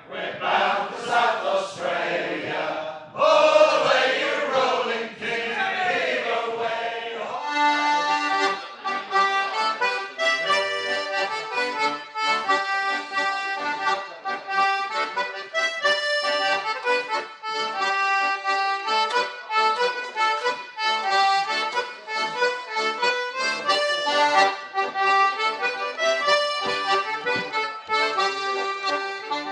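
A group of men singing a shanty together for the first few seconds, then an accordion-led folk dance tune for ceilidh dancing, with a steady beat and a bright, note-by-note melody.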